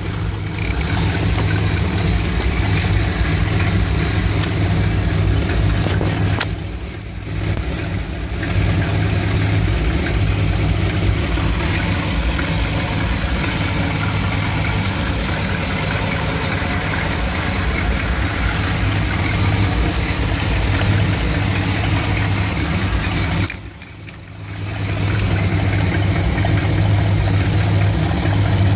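1975 Dodge B200's 360 cubic-inch (5.9 L) V8 with a two-barrel carburettor idling roughly when warmed up, a rough idle that a new ignition coil has not cured. The sound sags briefly twice, about 7 and 24 seconds in.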